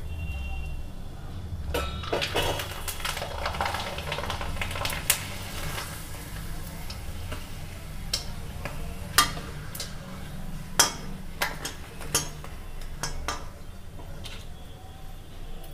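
Rice papad deep-frying in hot oil in a metal kadhai, the oil sizzling, strongest in the first half. From about five seconds in, a steel slotted spoon clinks sharply against the pan several times as the papad is turned and lifted.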